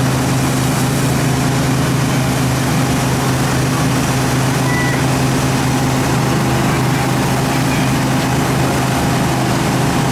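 An engine running steadily with a constant low drone and unchanging pitch.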